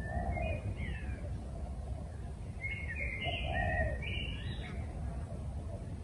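Birds chirping in two short bouts of quick, gliding notes, one near the start and a longer one around the middle, each with a lower note beneath it, over a steady low background rumble.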